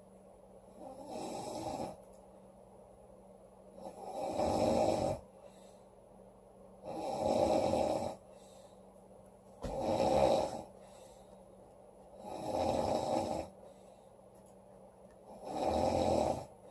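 A woman snoring loudly in a slow, regular rhythm: six snores, each about a second long, coming roughly every three seconds.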